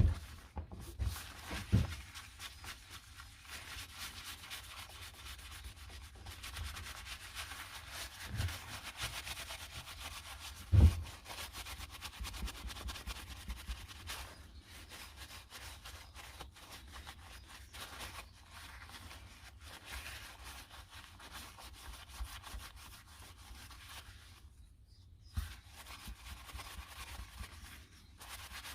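Sanding a wood and resin pendant: continuous rough scratching of abrasive on the piece. A few dull knocks are heard, the loudest about eleven seconds in, and there is a short break a few seconds before the end.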